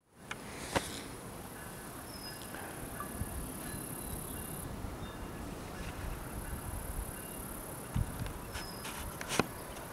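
Outdoor ambience: a steady low background rumble with a high, even buzz that cuts off about halfway through. A few short high chirps and sharp clicks come near the start and near the end.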